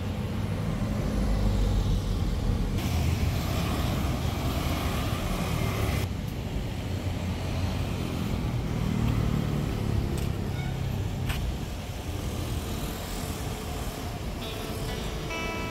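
Steady rumble of road traffic, with a couple of sharp clicks about two thirds of the way in. Music with plucked strings comes in near the end.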